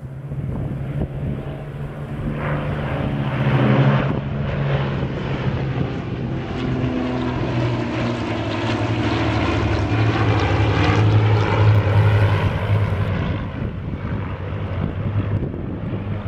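Several light piston-engine propeller planes, twin- and single-engine, flying past low in formation. Their engines make a steady drone that swells as they pass and drops in pitch as they move away.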